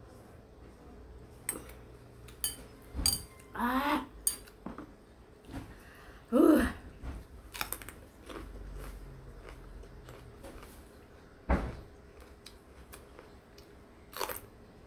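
Eating sounds: metal chopsticks clicking against a ceramic noodle bowl and scattered mouth noises, with two short voiced exclamations a few seconds apart. Near the end, a bite into a raw green chili.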